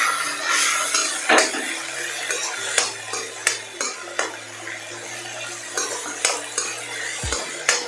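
Stir-frying in a steel kadhai: a metal utensil scraping and clinking irregularly against the pan as sauce-coated paneer and vegetables are stirred and tossed, over a light sizzle of the food frying.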